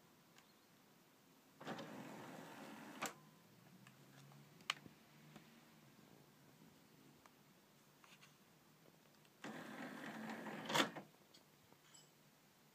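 Marantz CD52mkII's CDM-4 tray mechanism: the loading motor, belt and gear drive the disc tray out in one even run of about a second and a half, ending in a click, and a few seconds later drive it back in, ending in a louder clunk. A single click sounds in between. The runs go through without juddering, which is how the tray sounds once the worn loading gear has been replaced.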